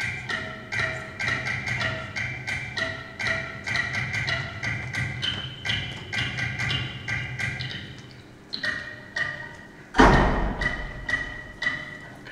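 Pegged-cylinder rhythm machine playing a repeating pattern of short, pitched, struck notes, about three a second. Around ten seconds in, one loud, deep thump rings out, and the notes go on more sparsely.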